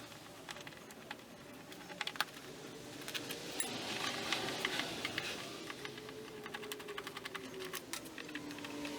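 Light, irregular clicks and ticks of a hand screwdriver working screws out of the back of a vinyl car door panel, coming thicker toward the middle and end.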